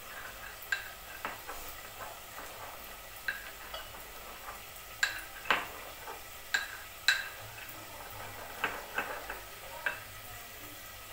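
Steel pestle knocking and grinding in a small steel mortar cup. The metallic knocks come irregularly, about ten in all, and the sharpest ones fall near the middle.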